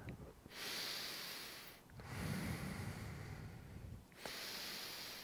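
A man breathing deeply and slowly while holding a standing yoga pose, three long breaths in and out of one to two seconds each.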